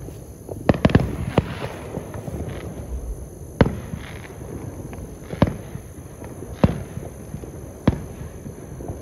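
Aerial fireworks going off: a quick cluster of bangs about a second in, then single bangs every second or two, each trailing into an echoing rumble, over a constant low rumble of more fireworks.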